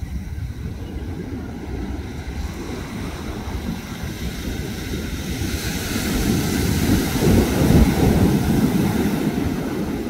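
Ocean surf on a sandy beach: a steady rumble and wash of waves, with wind buffeting the microphone. A wave breaks close in and rushes up the sand, swelling into a louder hiss about six seconds in and easing off near the end.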